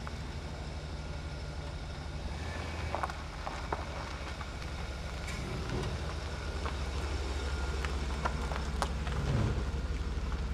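GMC Vandura 2500's 5.7-litre V8 engine idling with a steady low hum, then the van pulling away slowly, the engine note swelling briefly about nine seconds in.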